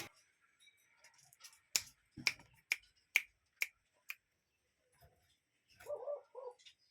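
A run of six sharp clicks, about two a second, then near the end a short two-note low call, typical of a common cuckoo's "cuck-oo".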